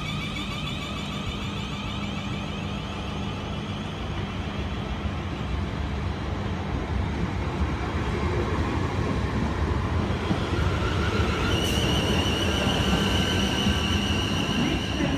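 South Western Railway electric train pulling out of the station, its low rumble growing louder through the second half. A click comes about twelve seconds in, followed by a steady high whine.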